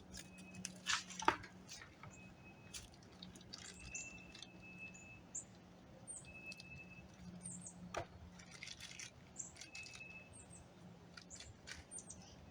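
Light clicks, taps and rustles of hands working a plastic door handle cover and a strip of 3M double-sided tape, the loudest click about a second in. Short high chirps recur throughout.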